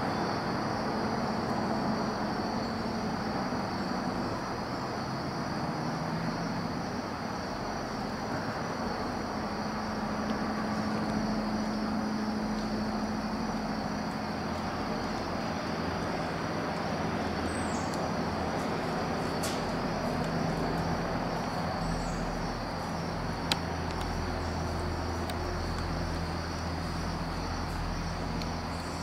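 A steady, low droning engine rumble from distant traffic, over insects chirring steadily in a high, even pulse. There is one sharp click about two-thirds of the way through.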